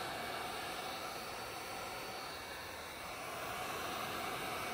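Heat gun blowing hot air in a steady hiss, post-heating vinyl wrap laid over rivets.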